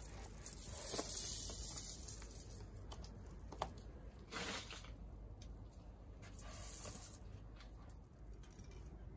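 Rustling of artificial Christmas tree branches and light clicking of a plastic bead garland as it is draped over the tree, in several soft swells with a few small clicks.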